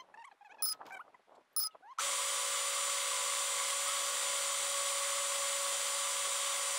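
FPV quadcopter's motors and propellers spinning at a steady idle: an even whine with hiss that starts suddenly about two seconds in and holds one pitch. Before it, faint scattered clicks and chirps.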